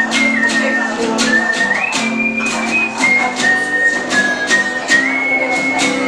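Instrumental close of an enka song: a strummed guitar keeps a steady beat about twice a second under a high melody of long held notes stepping between pitches, with one upward slide.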